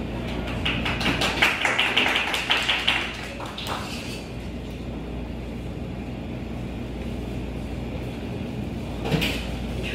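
Brief audience clapping for about three seconds, then a steady low room hum, broken by a short sound about nine seconds in.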